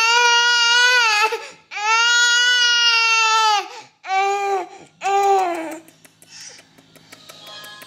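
Infant crying: two long wails of about two seconds each, then two short cries, stopping about six seconds in.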